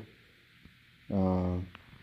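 A pause in speech with only faint room tone, then, just after a second in, a man's brief held 'um' of hesitation.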